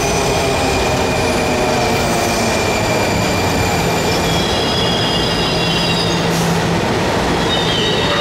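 Washington Metro subway train rolling along the platform and slowing, with a dense rumble, a high squeal from the wheels, and whining tones that fall slowly in pitch. About three seconds in, new high squeal tones and a low hum join in.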